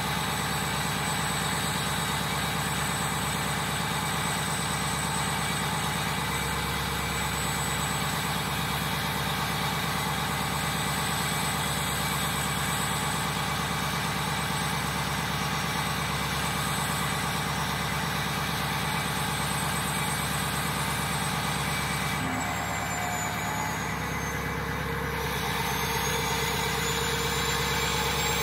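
Ford 6.0 Powerstroke turbo-diesel V8 idling steadily at the exhaust tip while it warms up from a cold start, having sat for days without its block heater plugged in. The note shifts and dips slightly in level for a few seconds about two-thirds of the way through.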